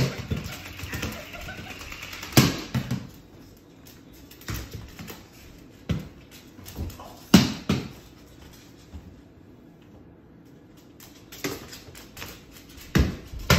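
Irregular knocks and thumps, about eight scattered through the stretch, from a cockatoo playing with toys on a kitchen countertop.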